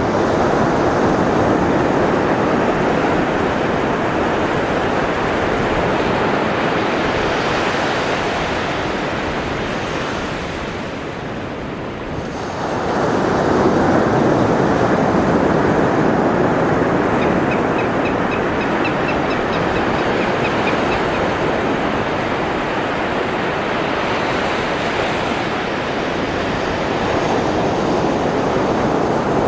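Ocean surf washing steadily. It eases off, then swells again as a wave breaks about twelve seconds in. A faint run of quick high-pitched ticks comes about two-thirds of the way through.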